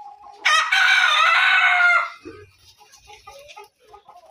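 A rooster crows once, loud, for about a second and a half, starting about half a second in. Soft, short clucks from hens come before and after the crow.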